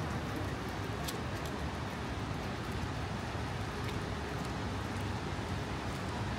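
Rainy city street ambience: a steady wash of rain and traffic noise with a low rumble underneath, broken by a couple of faint ticks.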